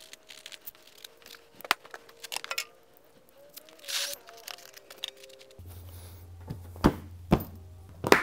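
Small clicks and knocks of power tools and bits being set into a foam-lined Milwaukee Packout case, then a few sharp plastic knocks near the end as the case lid is shut, over quiet background music.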